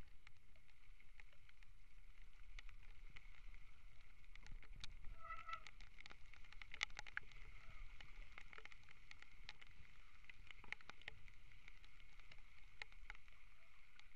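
Mountain bike ridden over a wet dirt forest trail: a steady low rumble from the bumps and airflow on the mounted camera, with scattered clicks and rattles from the tyres on grit and the bike's parts, thickest and loudest about five to seven seconds in.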